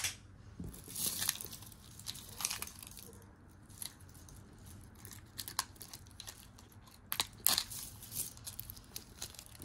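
Costume jewelry being handled and sorted: scattered light clicks and rustles, a few louder ones about a second, two and a half seconds and seven and a half seconds in.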